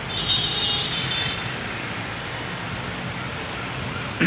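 Steady city traffic noise, with a high, thin tone over about the first second.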